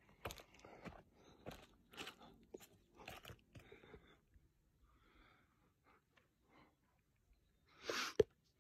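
Footsteps crunching on a dry, gravelly dirt trail, an uneven two or three steps a second, thinning out about halfway through. Near the end there is a brief louder rustle ending in a sharp click.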